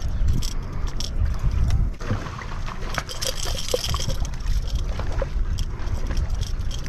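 Wind buffeting the microphone in uneven low gusts, heaviest in the first two seconds, over water lapping and trickling among shoreline rocks.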